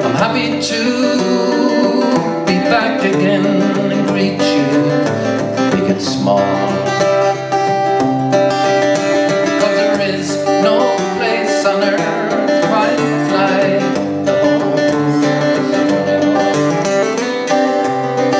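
Live Irish folk music: an acoustic guitar strummed in a steady rhythm under an accordion playing the melody.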